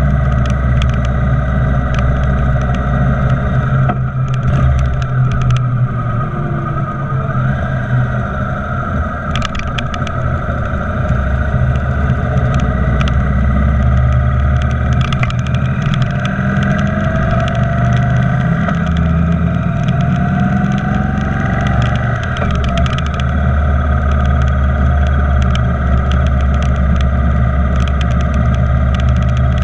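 Motorcycle engine running and wind rushing past while riding along a road, the engine note easing for a few seconds early on and then picking up again.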